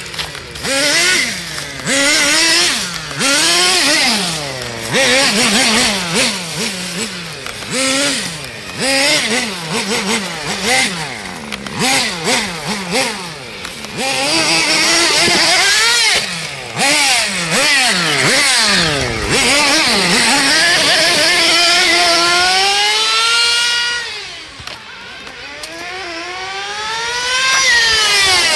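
Kyosho Nitro Tracker RC truck's small two-stroke nitro engine revving up and down in quick throttle bursts as it is driven. Near the end it drops to a lower, quieter note for a couple of seconds, then revs up in a long rising whine.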